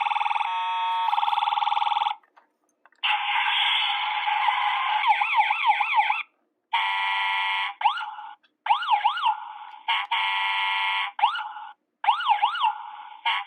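Toy ambulance's electronic siren sound effects from its small built-in speaker, set off again and again: five short bursts with brief gaps, some a steady buzzing tone and some a fast up-and-down wail.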